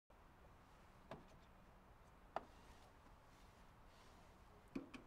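Near silence inside a car cabin, broken by three soft, short clicks about a second in, about two and a half seconds in and near the end. They come from someone shifting in the seat and handling small things.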